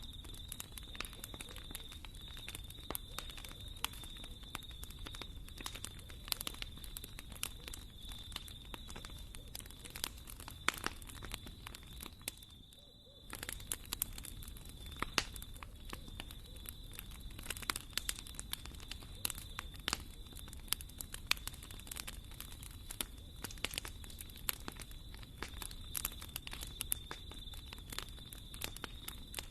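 Wood fire burning in a fireplace, crackling with many sharp, irregular pops over a low steady rumble of the flames. The sound drops out briefly about halfway through.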